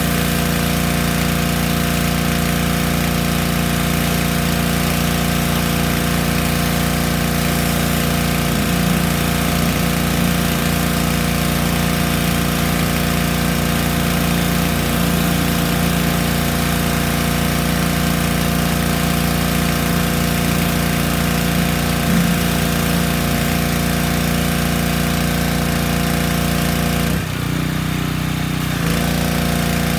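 Yamaha PowerStroke 3100 PSI pressure washer running steadily, its engine under load with the hiss of the high-pressure spray. Near the end the spray stops for about a second and a half, as the trigger is released, then starts again.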